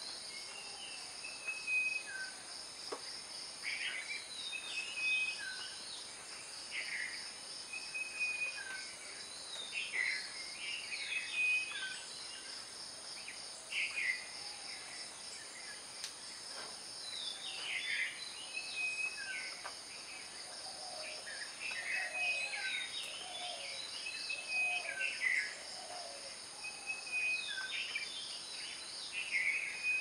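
Garden bird calls: many short chirps and whistled notes from several birds, with one short level whistle that recurs every few seconds. Under them runs a steady, high-pitched insect chorus.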